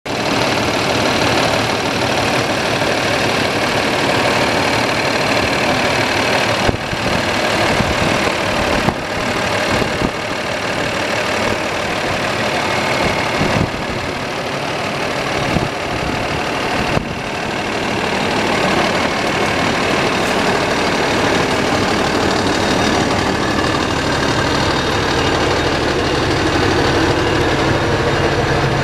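Diesel engine of a 2009 Sterling Acterra medium-duty truck idling steadily.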